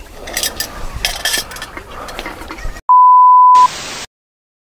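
Faint clinks of dishes at a camp table, then a sudden cut to one loud steady electronic beep about three-quarters of a second long, followed by short bursts of static hiss: the sound effect of a camcorder-style 'REC' title card.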